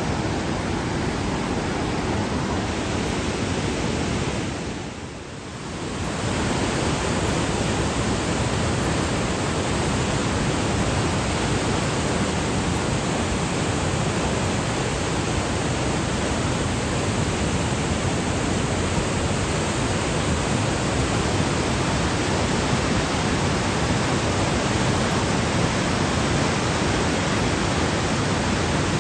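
Steady rushing of a muddy mountain river in flood, churning through rapids. The sound dips briefly about five seconds in, then returns at full strength.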